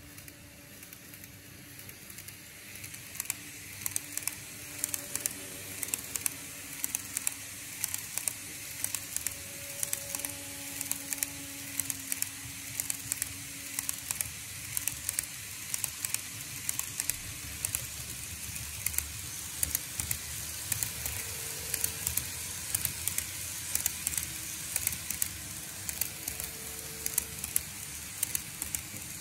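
N-gauge model trains running along the track: a steady rolling hiss of wheels and small motors, growing louder over the first few seconds as a train approaches. Regular clicks, typical of the wheels crossing rail joints, repeat all the way through.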